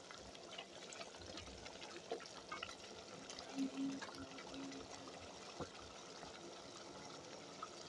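A pot of meat stew boiling: faint, steady bubbling with many small pops, and one sharper click a little past the middle.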